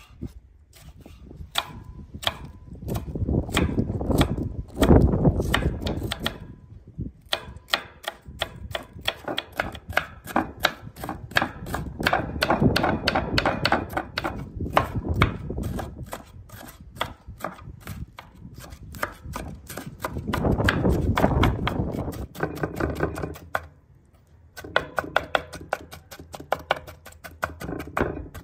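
Chef's knife chopping bell peppers on a wooden cutting board: a quick, steady run of knife strikes on the wood, several a second, with two brief pauses.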